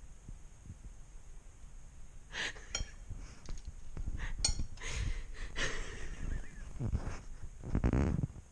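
A woman laughing in short, irregular bursts, the longest and loudest near the end, over low handling rumble.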